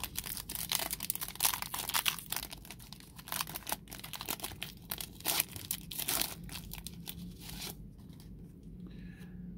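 Foil wrapper of a trading-card pack being torn open and crinkled by hand: a dense run of crackles and rips that eases off about eight seconds in.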